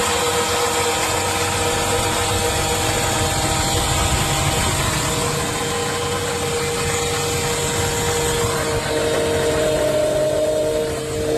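Chevy engine running with a steady whine over the engine noise. The whine is the fault the customer complains of, and it grows stronger near the end.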